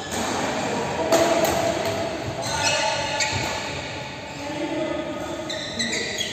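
Badminton play in a large, echoing sports hall: a few sharp hits of rackets on the shuttlecock, with players' voices calling and talking throughout.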